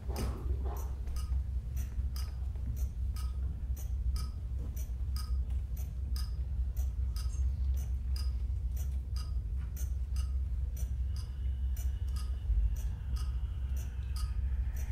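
Underwater hydrophone recording: a steady deep rumble under a regular train of sharp clicks, about two to three a second. Faint wavering high tones come in about eleven seconds in.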